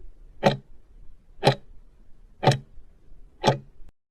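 Sharp ticks at a steady one per second, four in all, over a faint low hum; the sound cuts off suddenly just before the end.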